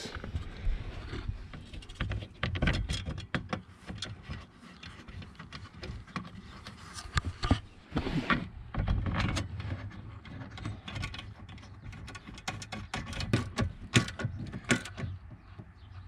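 Handling noise from a plastic lower dash trim panel being pressed and fitted into place: scattered clicks, taps and knocks with rubbing, loudest in clusters about halfway through and again near the end.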